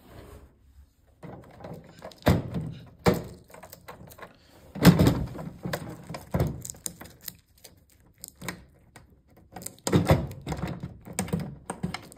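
Koro Max Prime coffee vending machine's front door being pushed shut and locked with its service key: a series of irregular knocks and clicks of plastic and metal, the loudest about five seconds in.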